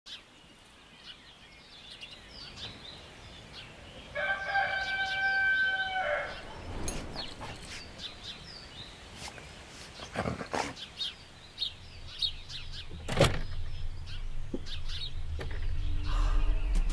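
A rooster crows once, a long call about four seconds in, over birds chirping. Two brief sharp sounds come around ten and thirteen seconds, and in the last few seconds a low hum swells into the start of music.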